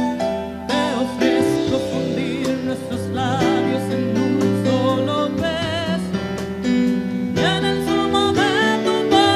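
Music: a song with guitar accompaniment and a wavering melody line on top.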